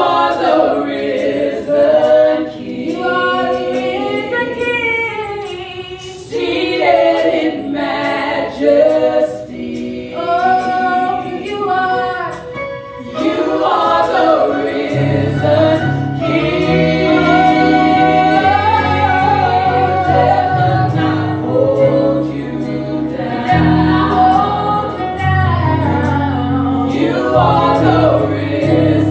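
A women's praise team singing a gospel worship song together through microphones, several voices in harmony. About halfway through, a low bass accompaniment comes in under the voices.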